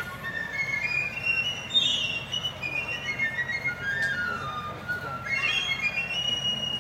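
Three piccolos playing quick, high runs in parallel that climb and fall, with a falling run about four seconds in and a held high note near the end.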